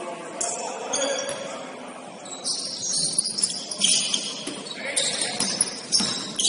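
Basketball game on an indoor court: sneakers squeaking repeatedly on the floor in short high squeals, thickest in the second half, with a few sharp knocks of the ball.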